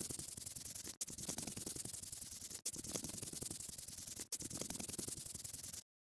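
Colouring-in sound effect: fast, scratchy rubbing strokes. It breaks off briefly three times, about a second in, midway and past two-thirds, and stops just before the end.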